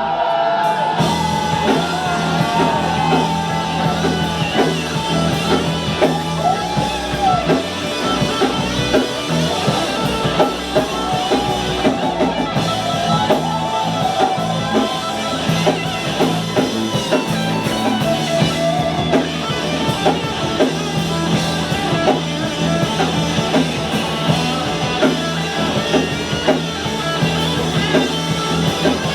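Live band playing a rock song, with guitar and a drum kit under a wavering lead melody line.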